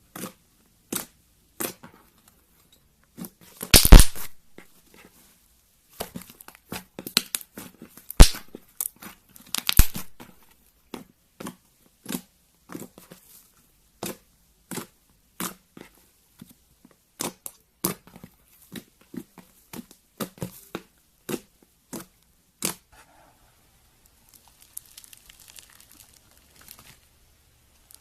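Slime being squished and stretched by hand, giving irregular sticky pops and crackles, with the loudest pops about four, eight and ten seconds in. Near the end only a faint crackle is left.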